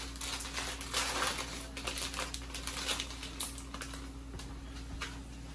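Plastic wrapper of a package of dry thin spaghetti crinkling in quick, irregular crackles as it is opened and the pasta is pulled out, thinning out toward the end.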